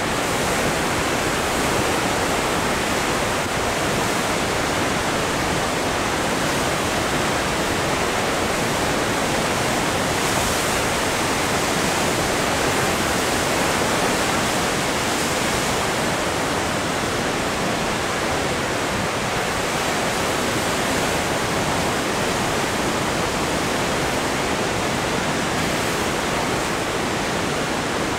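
Heavy ocean surf breaking and washing over shoreline rocks: a steady, continuous rush of white water with no single wave standing out.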